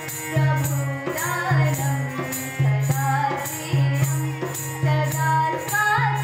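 A girl singing a Sanskrit song to harmonium accompaniment, with a dholak beating a steady rhythm of low strokes about once a second and a tambourine jingling along.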